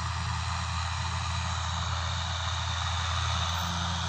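Tractor engine running steadily, a constant low hum with an even hiss above it.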